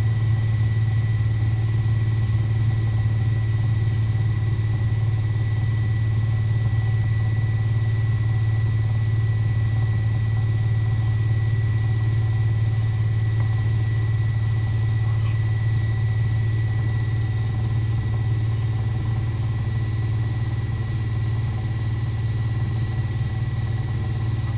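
Single-turbo Toyota 1JZ inline-six engine in a BMW E36 idling steadily, with no revving.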